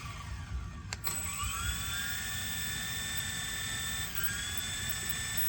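Small electric motor and rotors of a toy remote-control helicopter spinning with a high whine. The whine drops away at the start, a click comes about a second in, then the pitch rises and holds steady, dipping and climbing again about four seconds in.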